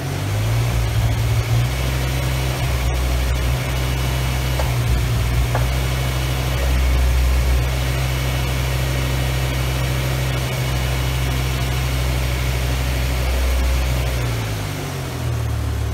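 BMW S85 5.0-litre V10 idling while the VANOS bleed routine drives the camshaft adjusters back and forth to push trapped air out of the VANOS system; the VANOS units pop as they hit the end of their stroke. The engine note steps up right at the start and dips and comes back up near the end.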